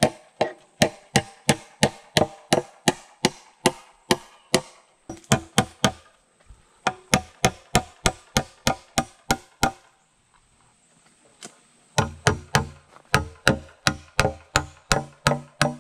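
Claw hammer driving nails through a cedar 2x6 board into a tree trunk: steady blows about three a second, with a short break about six seconds in and a longer one around ten to eleven seconds before the hammering starts again.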